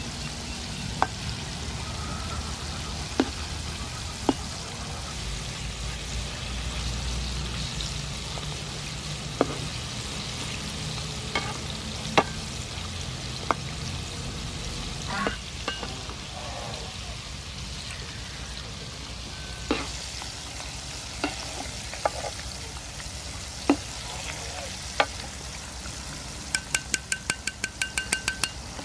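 Battered squid rings deep-frying in hot oil, a steady sizzle, with sharp single knocks of a metal ladle against the pan as they are stirred. Near the end comes a quick run of about ten ringing metal taps as the rings are lifted out in a wire strainer.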